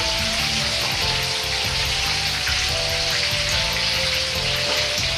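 Breaded pork cutlet deep-frying in a wok of high-temperature oil, a steady sizzling hiss as it is re-fried briefly to crisp the coating and drain off the oil. Background music plays under it.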